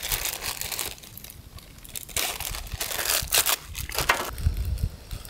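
Dry material crunching and crinkling in two spells of crackly noise, the second from about two to four seconds in with a run of sharp cracks.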